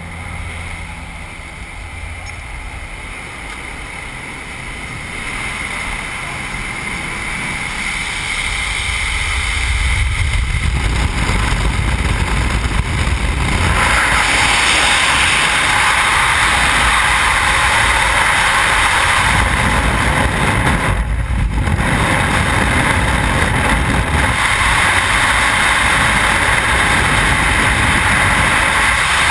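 Jump plane's cabin engine drone, growing louder as the door opens and jumpers move to exit, then about halfway through giving way to the loud, steady rush of freefall wind over the helmet camera.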